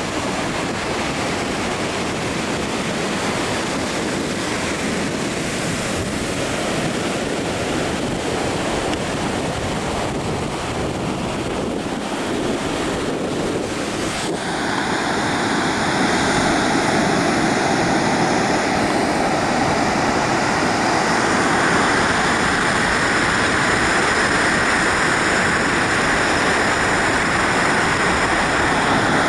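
Ocean surf breaking on a sandy beach, a steady wash with wind on the microphone; the surf grows louder about halfway through.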